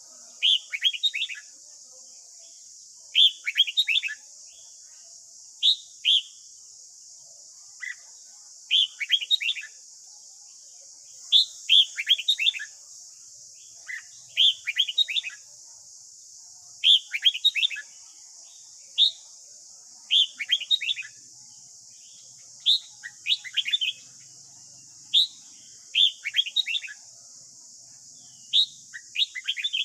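Red-whiskered bulbul singing short phrases of quick, falling whistled notes every second or two, with a steady high hiss behind.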